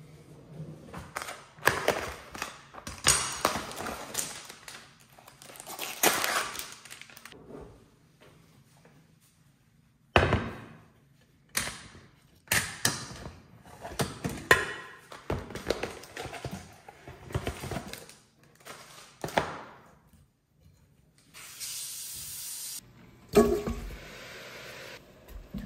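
Kitchen handling sounds: a run of knocks, rustles and clatter from a sealed plastic meat tray and cookware. Near the end a pressure cooker's metal lid is worked and lifted off the pot, with a loud thunk and a short steady hiss.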